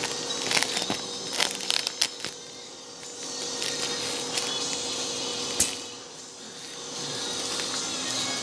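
Clear printed plastic bag crinkling and rustling as it is handled, densest in the first two seconds, over a steady mechanical hum. A single sharp click about five and a half seconds in.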